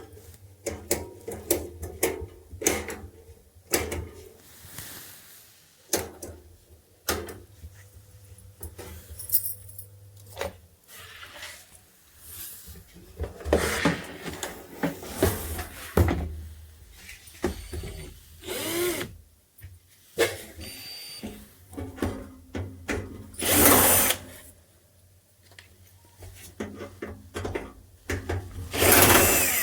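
Hand work on an electric room heater: repeated clicks and knocks of tools and parts being handled, with a few longer bursts of noise, the loudest near the end.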